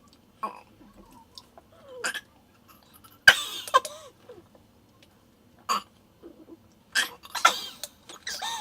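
A person's short coughs and throat noises, several separate bursts with pauses between them, the loudest about three seconds in and another run near the end.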